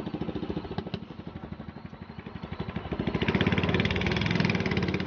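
An engine running with a rapid, even pulse, growing louder about three seconds in.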